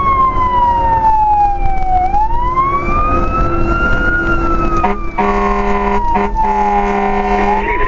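Fire engine siren wailing, its pitch sliding slowly down and back up over several seconds. About five seconds in, the truck's air horn joins with three blasts, a short one then two longer ones.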